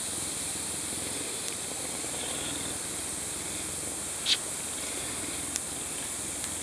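Puma purring steadily while rubbing its head against a person's face, under a steady high hiss. A sharp short click sounds a little past four seconds in.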